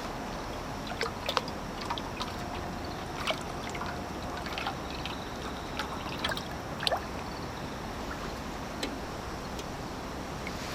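Water drops falling and plinking irregularly into water, over a steady hiss.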